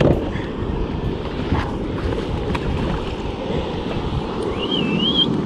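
Wind buffeting the microphone over sea water sloshing along the side of an inflatable boat. A short, wavering high whistle sounds near the end.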